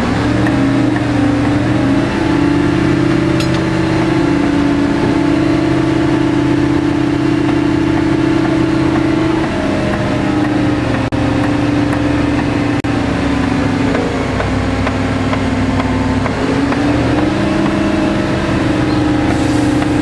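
Mobile crane's diesel engine running at raised revs to drive the hoist as it lifts a personnel basket. The revs climb a little at the start, ease off about halfway through and pick up again a few seconds before the end.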